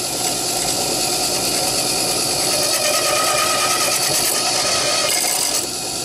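Drill press running with a Tapmatic tapping head while a tap cuts 2-56 threads in a titanium back spacer: a steady mechanical running sound that changes a little about five and a half seconds in.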